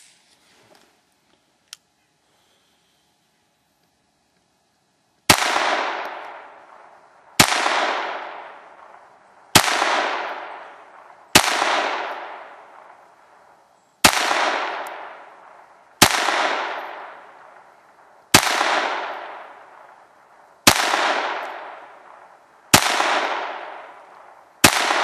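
Ruger 22/45 Mark III .22 LR pistol firing ten slow, aimed shots, about one every two seconds, each shot followed by a fading echo. Two clicks come in the first two seconds, before the shooting starts.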